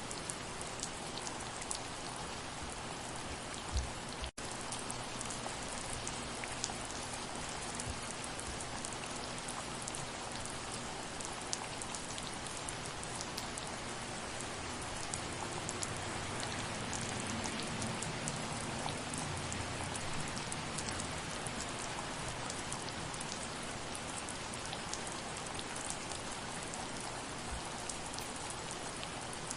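Steady soft rain falling, with many individual drops ticking on a surface. About four seconds in there is a short low thump, then a split-second gap in the sound.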